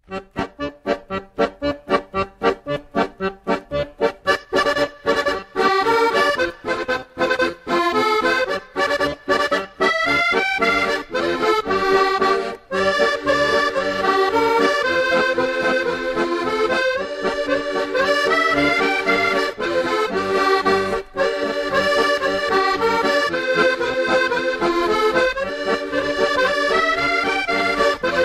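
Sea-shanty-style accordion tune. It opens with short detached notes at about four a second, then settles into held chords under a moving melody.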